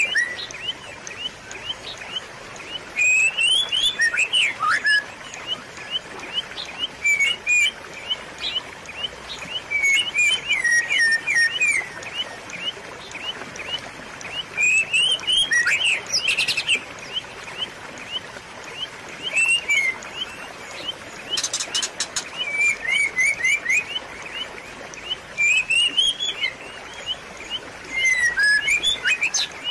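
A songbird calling in short chirping phrases of quick pitch sweeps, repeated about every three seconds, over a steady trickle of running water.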